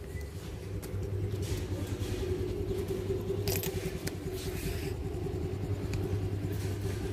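Motor scooter engine idling steadily, left running to warm up.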